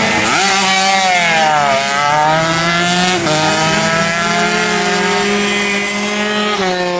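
Small 135cc racing motorcycle engines revving around the circuit. The pitch falls as a bike slows into a turn and climbs again as it accelerates out, with a brief drop about three seconds in and another fall near the end.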